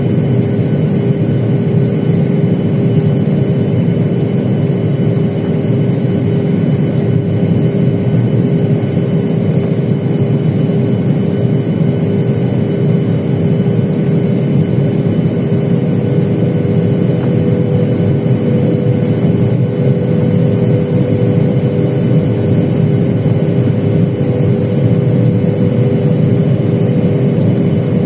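Steady cabin roar of a Boeing 737-800 during the landing approach, heard from a window seat: its CFM56-7B engines and the rushing air, with a steady hum tone over the low noise.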